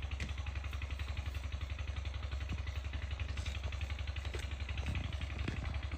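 8 hp single-cylinder diesel engine running steadily at an even speed, a fast, regular chugging beat.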